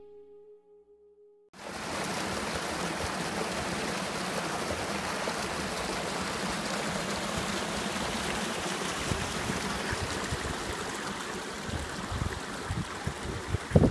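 A shallow stream rushing and splashing through small cascades between rocks, a steady rush that cuts in suddenly about a second and a half in after soft music fades out. A few low thumps near the end.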